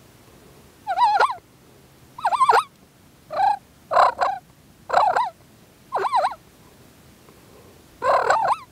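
Wild turkey gobbling: seven short, rattling gobbles in quick succession, most about a second apart, with a longer pause before the last.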